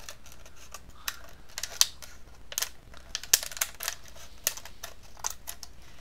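Scissors cutting around a thin plastic water bottle along its ribs: a string of irregular, sharp snips, about two a second.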